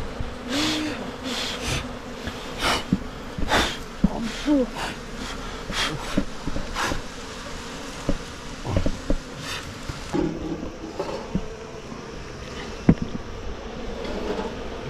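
Himalayan honeybees buzzing in a steady hum around an opened hive, with many short sharp clicks and knocks from handling scattered through the first two-thirds.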